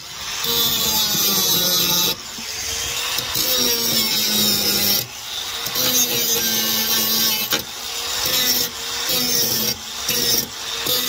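Angle grinder grinding down steel weld beads, its motor note sagging and recovering as the disc bites. The sound dips briefly and builds back up several times.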